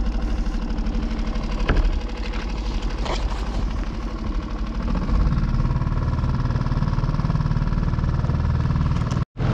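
Boat outboard motor running steadily, its note shifting about five seconds in.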